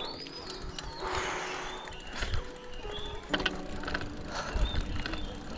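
Background music over the noise of a bicycle being ridden, with a few short bird chirps.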